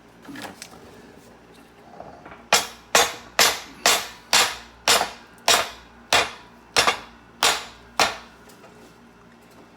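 About a dozen sharp hammer blows on metal, evenly spaced at roughly two a second, each followed by a short metallic ring.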